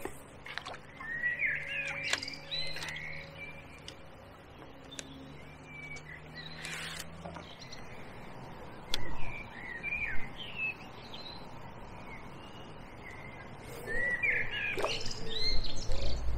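Small songbirds chirping in short bouts, busiest near the start and again near the end. A low rumble and a couple of dull thuds come about nine and ten seconds in.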